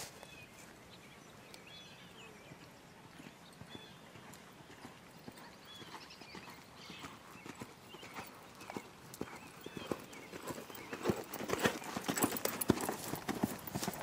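Hoofbeats of a ridden horse moving around a sand arena, faint at first and growing louder from about eight seconds in as the horse comes close, loudest near the end.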